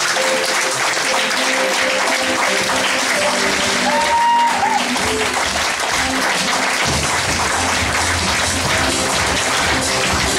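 Applause from the audience and the cast, with music playing underneath; the music gets a heavier bass about seven seconds in.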